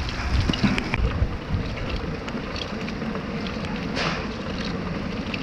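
Storm wind buffeting the microphone: a continuous rushing noise with low rumbling gusts, heaviest in the first second, and scattered small ticks and clicks.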